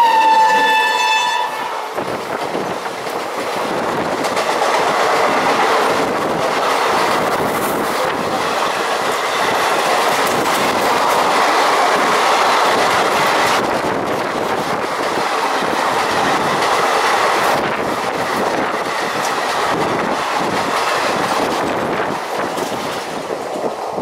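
WAP7 electric locomotive's horn sounding, cutting off about a second and a half in. Then the express train's coaches pass close alongside with a steady rush and clickety-clack of wheels on the rails.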